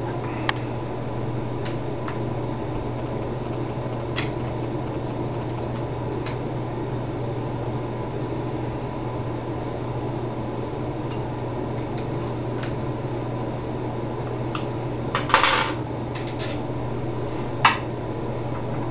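Scattered light metallic clicks and clinks of an Allen wrench and small screws being worked on a Smart Parts Ion paintball marker, with a louder short rattle about fifteen seconds in. A steady hum runs underneath.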